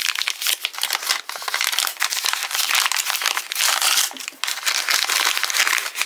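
Small white sealed toy accessory packet crinkling continuously as it is handled and torn open, a dense run of sharp crackles.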